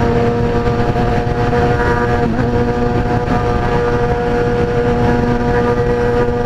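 A 2003 Kawasaki ZX-6R 636's inline-four engine holding a steady note while cruising at freeway speed, with a brief wobble in pitch about two seconds in. Heavy wind rush is heard on the helmet microphone.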